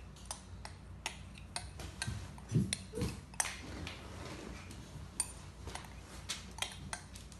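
Metal spoon knocking and scraping against a glass bowl as flour is tipped out into a stainless steel mixing bowl: a string of light, irregular clicks, with two soft thumps about two and a half and three seconds in.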